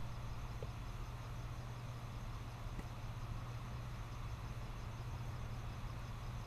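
A steady low hum over a constant hiss, with a faint, evenly repeating high-pitched pulsing.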